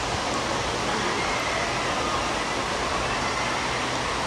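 Steady rushing of water from a water-park play area, an even hiss with no breaks, with a faint din of voices under it.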